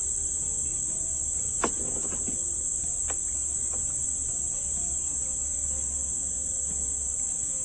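Steady high-pitched drone of an insect chorus, with one sharp click about one and a half seconds in and a fainter click about three seconds in.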